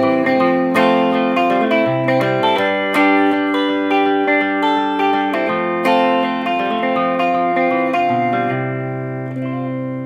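Solo electric guitar, a Fender Telecaster through a small combo amp, picking a line of single notes and chord tones; about eight and a half seconds in it settles on a final chord that rings out and fades, closing the song.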